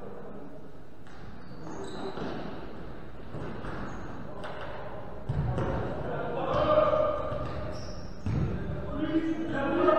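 Futsal ball thudding on the hard court as it is played, with two heavier thuds about five and eight seconds in, and players shouting to each other, loudest just before and after the second thud.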